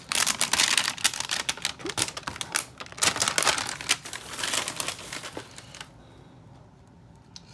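Plastic toy packaging being crinkled and torn open by hand: a dense, irregular run of crackles for about six seconds, then it drops to quiet handling.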